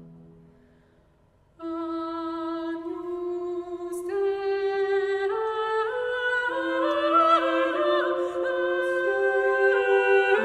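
A small vocal ensemble singing unaccompanied polyphony in a reverberant church. The previous chord dies away into near silence. One voice then enters about a second and a half in, and the other voices join one after another from about four seconds, building into full held chords.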